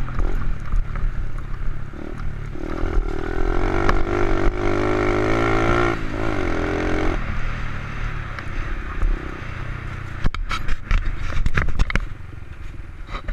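Honda XR70 pit bike with an 88cc big-bore kit and race cam, its four-stroke single-cylinder engine running hard at high revs with the throttle wavering, under way on a dirt trail. The revs fall off about seven seconds in, and a run of sharp knocks and rattles follows near the end.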